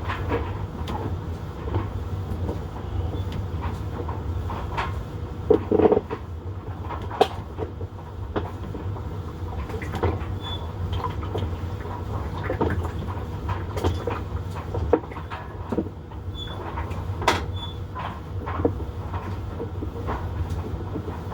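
Maytag top-load washing machine running with a steady low motor hum and irregular clunks and clicks, the loudest about six and seven seconds in. It is the symptom of a failed splutch actuator.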